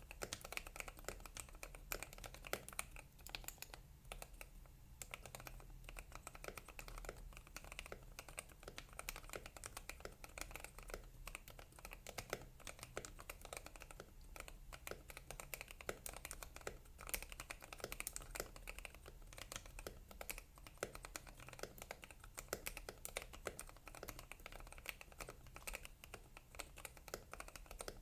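Typing on a Womier HS87 mechanical keyboard with lubed and filmed Gateron Yellow linear switches and DSA keycaps: a continuous, fast stream of keystrokes.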